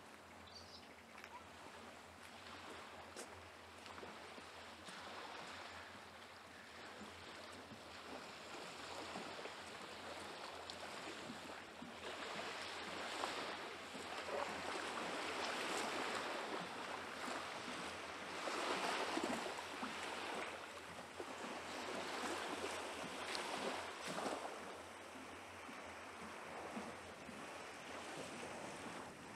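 Small Baltic Sea waves washing onto the sandy shore, a soft rushing that swells and fades every few seconds and grows louder about halfway through.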